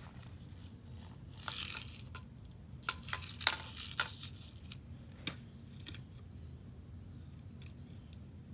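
Handling noise: a few sharp clicks and light knocks with short bursts of rustling, about a second and a half in, again around three to four seconds in and once more near five seconds, over a faint low hum.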